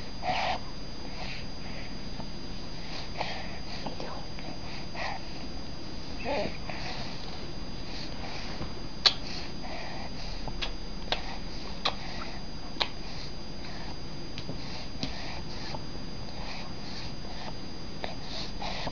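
Baby nursing at the breast: soft rhythmic sucking and breathing sounds about once a second, with a few sharp clicks in the middle stretch.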